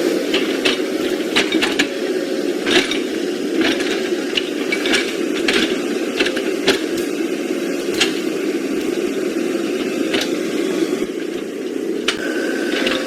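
Small electric motor and gearbox of a radio-controlled construction toy running steadily, with irregular plastic clicks and knocks over it.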